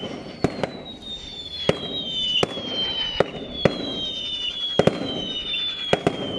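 Fireworks going off repeatedly, a dozen or so sharp bangs at uneven intervals, with high whistling tones that slowly fall in pitch running through them.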